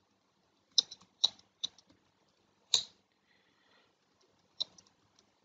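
Scattered keystrokes on a computer keyboard, about ten in all, in two short runs, with one louder key press near the middle.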